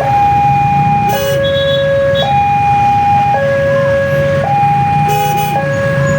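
Kyosan railway level-crossing warning alarm sounding its two-tone electronic signal, a high and a low tone alternating about once a second, the warning of an approaching train. A low steady rumble of engines runs underneath.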